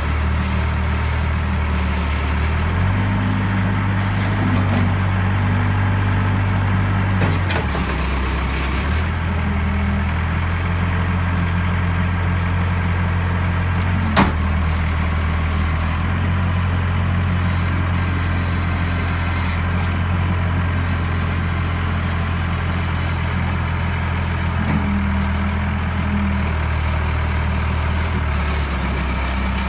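Diesel engine of a 2006 Case 70XT skid steer running steadily, its speed stepping up and down several times as the machine is worked. A sharp click comes about halfway through.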